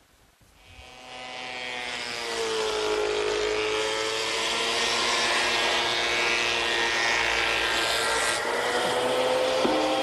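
Thickness planer motor spinning up and cutting a board. Its whine sags in pitch as the board feeds through the cutterhead under load, then climbs again about nine seconds in as the board clears.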